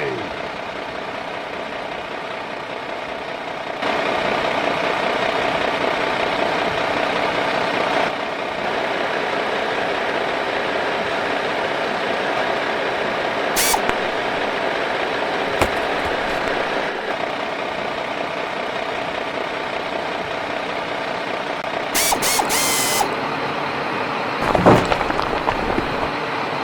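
Heavy construction machinery engine running steadily, with a few short sharp clanks about halfway through and near the end.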